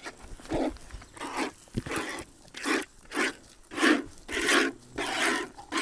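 Cow being hand-milked: streams of milk squirting in rhythmic hissing spurts, about two a second.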